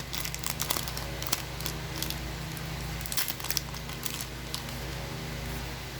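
Trading cards and foil booster-pack wrappers being handled: scattered light crinkles and ticks over a steady low hum.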